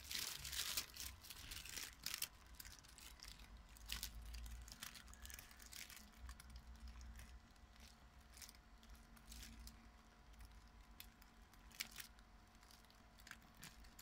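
Faint, scattered crinkling and rustling of reflective foil insulation being handled, busiest in the first few seconds, over a faint steady hum.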